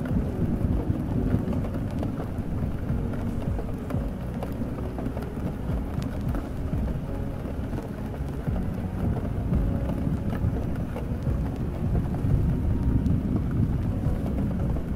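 Layered rain ambience: steady rain over a continuous deep low rumble, with faint muffled music underneath.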